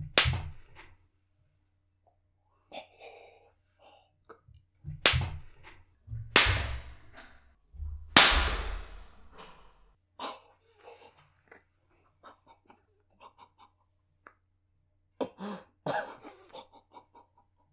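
Open-hand slaps across a man's face: a sharp smack right at the start, then three more loud smacks between about five and eight seconds in, the last trailing off slowly. Short breaths and vocal sounds fall between them.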